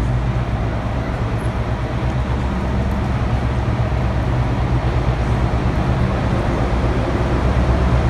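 Class 60 diesel locomotive, with its Mirrlees eight-cylinder engine, running with a steady low drone as it approaches slowly hauling a coal train, growing gradually louder.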